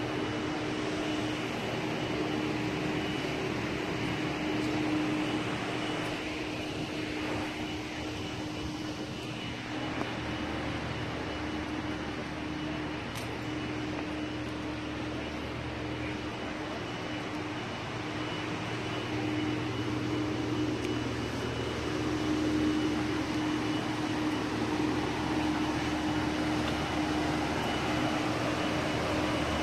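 A steady mechanical hum with a constant low tone, unchanging throughout, growing slightly louder near the end.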